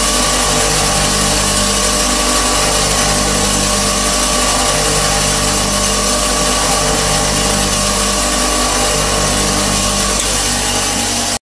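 Bench grinder running steadily, its abrasive wheel grinding the point of a large twist drill bit to sharpen it. The sound stops abruptly near the end.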